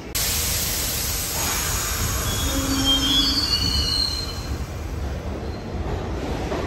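New York City subway 6 train on the Lexington Avenue line running along the station platform: a steady rumble, with the wheels squealing in thin high tones for a second or two around the middle.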